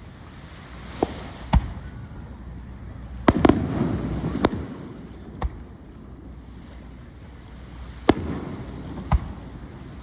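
Fireworks shells bursting overhead: about eight sharp bangs at uneven spacing. The loudest cluster comes about three to four seconds in, followed by a few seconds of swelling noise.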